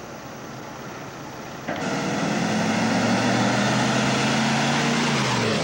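Quiet steady outdoor background, then about two seconds in a loud truck engine starts up abruptly close by and keeps running steadily, with its pitch sagging a little near the end.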